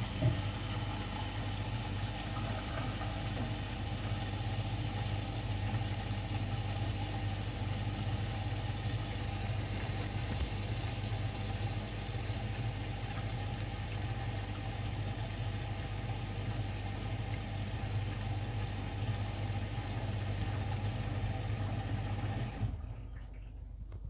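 Bosch front-loading washing machine running a hot drum-cleaning wash: a steady motor hum with water sloshing in the turning drum. The sound drops away near the end.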